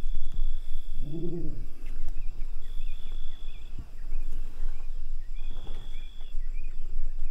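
Wild animal sounds: a short, low animal call that rises and falls about a second in. Around it, a high steady whistle-like call repeats every two to three seconds, with faint high chirps between.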